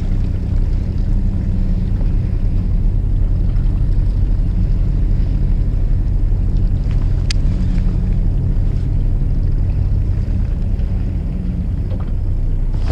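Fishing boat's engine running steadily with a low drone, and one sharp click a little past halfway.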